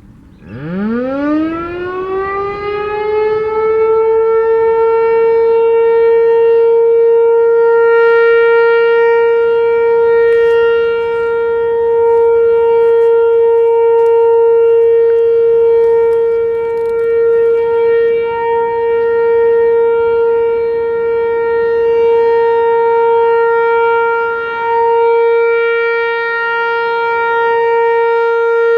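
ASC T-128 electromechanical outdoor warning siren winding up from a low growl to a steady single tone over about four seconds, then holding it, its loudness slowly swelling and fading, during a routine monthly siren test.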